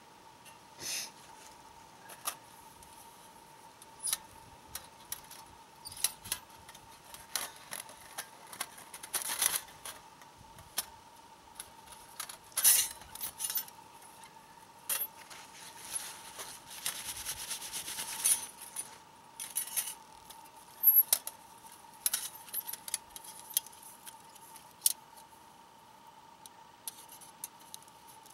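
Thin hinged metal panels of an Element 2.2 wood-burning stove clicking and clinking as they are handled and folded flat, with scattered scrapes and a paper towel rustling as it wipes them. The sound is a sparse string of sharp clicks with a few longer rustling stretches.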